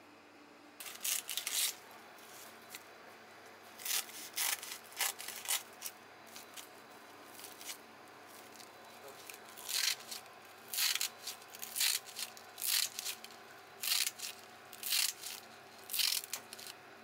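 Kitchen shears snipping through a sheet of dried nori seaweed: a run of short, sharp cuts, in clusters at first and then about one a second, with the crisp sheet rustling as it is handled.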